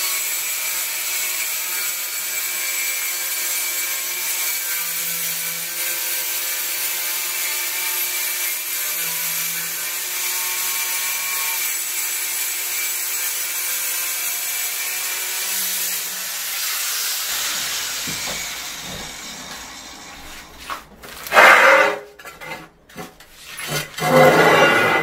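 Angle grinder fitted in a 45-degree chamfer guide, bevel-cutting along the edge of a tile: a steady cutting noise that fades away about 17 seconds in as the grinder is switched off and spins down. Near the end come a few loud clattering knocks as the cut tile is lifted and handled.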